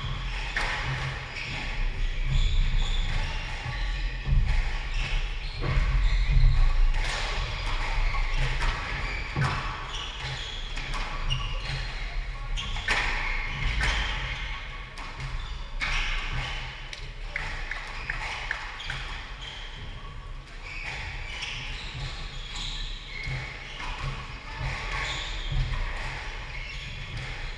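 Squash rally: the ball cracking off the rackets and the court walls about once a second, echoing in the court, with thuds of footwork on the wooden floor.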